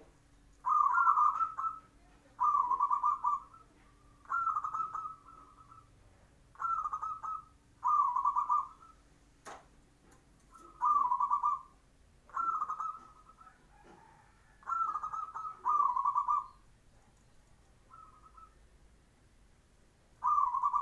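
Zebra dove (perkutut) cooing: about ten short, rolling coo phrases, each around a second long, repeated with brief pauses between.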